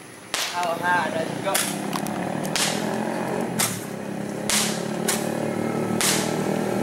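Fireworks going off overhead: a run of sharp bangs about once a second. A steady low drone runs beneath them from about two seconds in.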